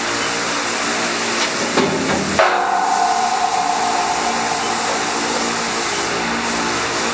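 Haas TM-2 CNC toolroom mill running, a steady mechanical hum with several tones. About two seconds in come a couple of sharp knocks, followed by a steady whine lasting about two and a half seconds.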